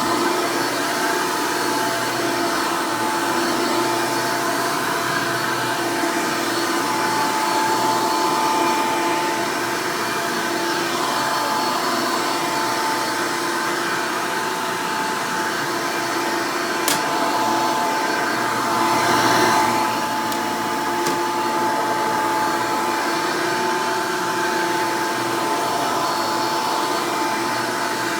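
Hoover Elite upright vacuum cleaner running steadily with an even motor whine. There is one sharp click about 17 seconds in and a brief swell in the noise a couple of seconds later.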